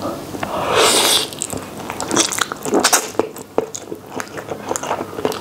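A person slurping a mouthful of Samyang spicy instant noodles, one long slurp about a second in, then chewing with many short wet smacks and clicks.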